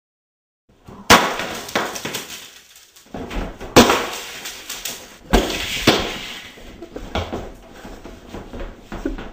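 A series of sudden, loud crashes, about seven in eight seconds, each trailing off in a rattling tail. The loudest come about a second in and near four seconds in.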